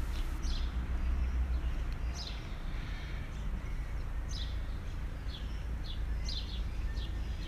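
Small birds chirping over and over in short, quick, falling notes, over a steady low rumble.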